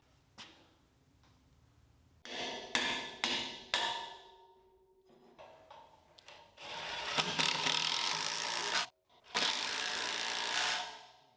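Four sharp knocks a couple of seconds in, then two stretches of steady mechanical tool noise that each cut off abruptly.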